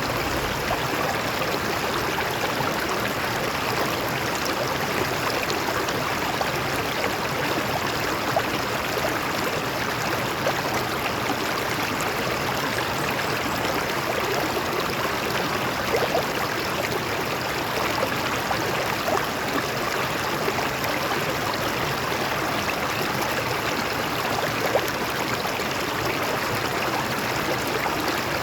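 A stream of water flowing and splashing over rocks, a steady rushing babble with small splashes scattered through it.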